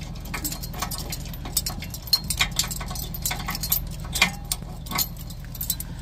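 Steel trailer safety chains clinking and rattling as they are handled and hooked to the truck's hitch openings: a string of irregular metallic clinks.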